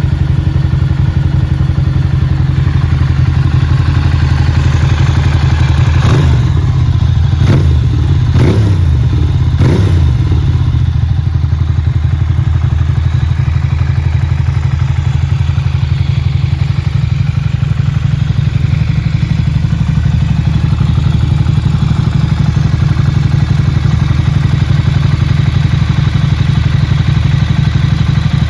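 Ducati Monster 695's air-cooled L-twin running through a GPR exhaust with the dB killer removed, idling loud and open. It is blipped about four times in quick succession a few seconds in, then settles back to a steady idle.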